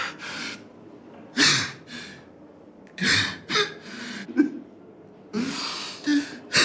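A man crying hard: several sharp, gasping sobbing breaths, with a few short choked whimpers between them.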